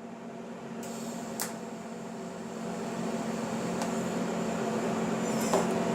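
Steady motor hum that grows gradually louder, with a light tick about one and a half seconds in and a few small clicks near the end.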